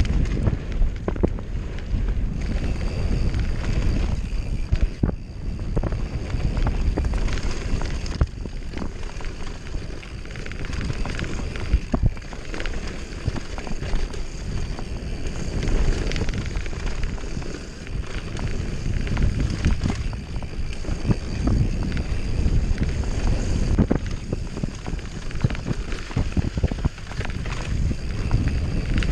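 Downhill mountain bike descending a rough dirt and rock trail, heard from a camera riding on the bike or rider: wind buffeting the microphone and tyres rumbling over the dirt, with frequent sharp knocks and rattles from the bike over bumps.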